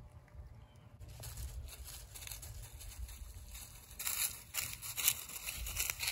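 Dry fallen leaves crunching and rustling underfoot, getting denser and louder about four seconds in, over a low rumble on the microphone.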